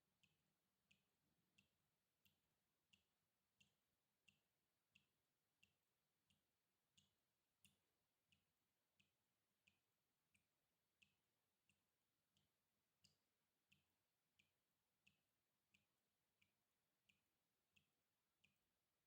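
Water dripping in a steady, even rhythm, faint, about three drops every two seconds, each a short plink.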